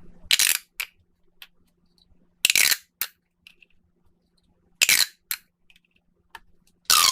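Plastic pop tube toy being stretched and snapped, giving short, sharp, rasping bursts about every two seconds. The last burst, near the end, is longer, with a whistling tone that falls in pitch.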